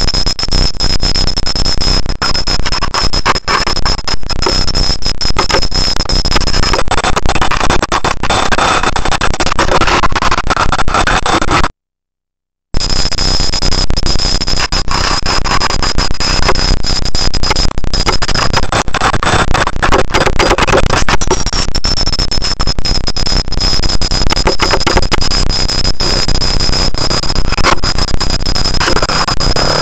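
Loud, crackling hiss from a cheap camera's overloaded microphone, with a steady high-pitched electronic whine over it. The sound cuts out completely for about a second near the middle.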